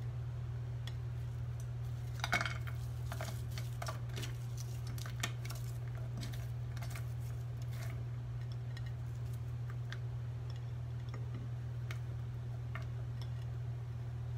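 Sliced onion dropped by hand into an empty cooking pot: a scatter of light clicks and taps, thickest in the first half, the loudest about two seconds in. A steady low hum runs underneath.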